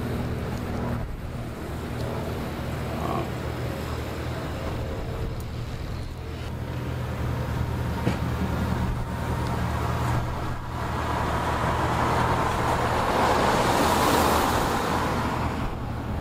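A motor vehicle engine running with a steady low hum, joined by a rising and falling rush of broad noise that peaks near the end.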